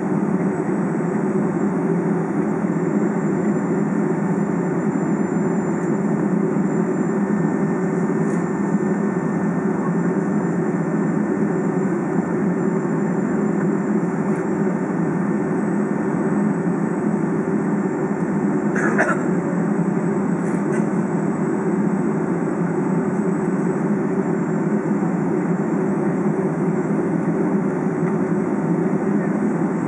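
Steady cabin rumble inside a Boeing 757 taxiing on the ground, its engines at low power. A brief faint click about two-thirds of the way in.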